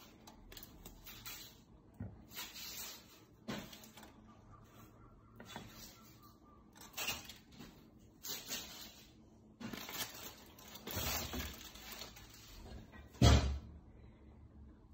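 Chicken wings being lifted with metal kitchen tongs and set down on a plate: scattered clicks, clatters and rustles, with one louder thump near the end.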